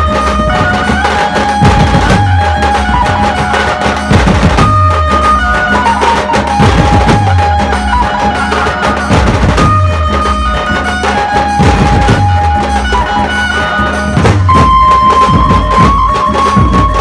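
Chhattisgarhi dhumal band playing: large barrel drums beaten in a dense, loud rhythm, with a deep stroke that sags in pitch recurring regularly. Over the drums runs a melody of long held notes that step from pitch to pitch.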